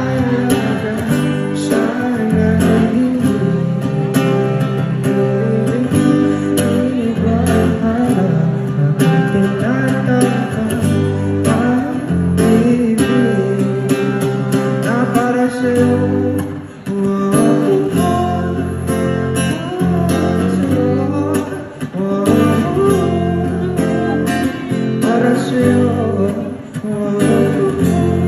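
Live amplified pop ballad: a male vocalist singing into a microphone over acoustic guitar and band.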